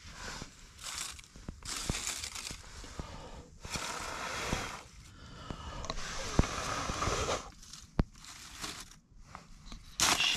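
Dry leaves and twigs crunching and crinkling in irregular bursts, with a few sharp snaps.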